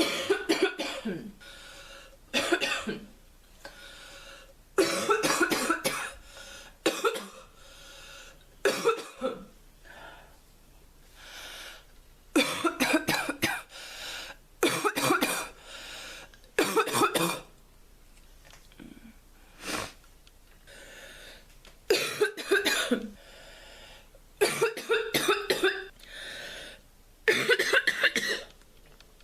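A sick, stuffy girl coughing in about a dozen fits, some a single cough and some several in quick succession. The cough is crackly and barking, going back and forth between wet and deep.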